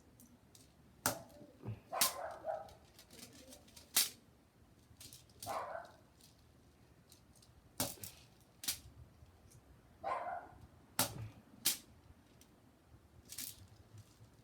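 A dog barking three times, mixed with about eight sharp clicks and snaps, some of them in close pairs.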